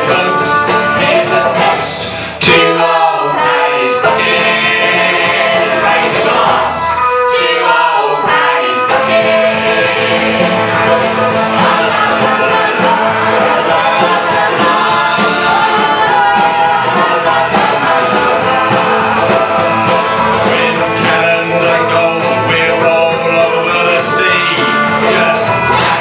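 Live acoustic folk band playing a bluegrass-style song: banjo and acoustic guitar strumming over upright bass, with voices singing together. The bass drops out briefly twice in the first eight seconds.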